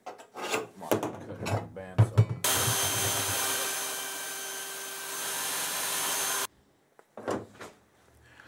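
A few quick scraping strokes of a hand tool on steel plate with some knocks, then a bandsaw cutting through two stacked 10-gauge steel plates for about four seconds, running steadily and stopping suddenly.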